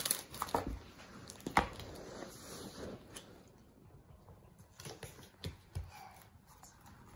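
Scattered light rustles and clicks of small objects being handled, such as a card and its packaging. The loudest come right at the start and about a second and a half in, then the sounds grow fainter and sparser.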